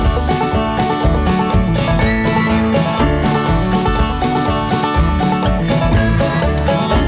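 Instrumental country-bluegrass music with plucked strings over a steady bass beat.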